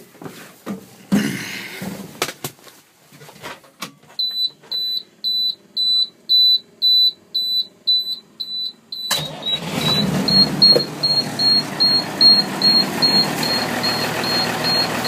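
Cold start of a 1991 International 4800 truck. After a few clicks and knocks, the dash warning beeper pulses steadily, about two and a half beeps a second. About nine seconds in the engine fires and keeps running while the beeping goes on over it.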